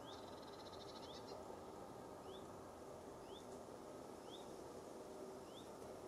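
A small songbird repeating a short rising call about once a second, with a brief rapid trill of high notes in the first second or so, over a faint steady background hiss.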